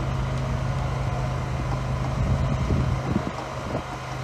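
A steady low motor hum, like an engine running, with wind noise on the microphone. A few soft knocks come through in the second half.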